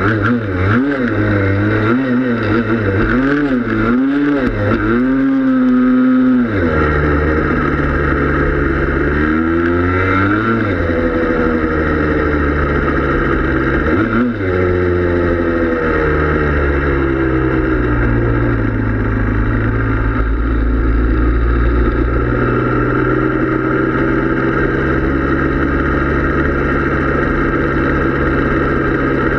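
Yamaha Blaster's 195cc two-stroke single-cylinder engine under way, revving up and down about once a second at first. Its pitch then climbs and drops twice more before holding steady.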